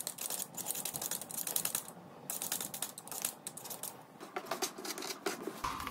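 Y-shaped vegetable peeler scraping the skin off a raw potato in quick, repeated strokes, with a brief pause about two seconds in.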